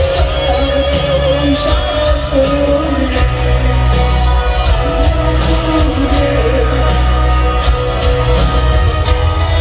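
Live rock band playing a power ballad through a stadium PA, heard from far back in the stands: piano, bass and steady drum hits under a male lead singer.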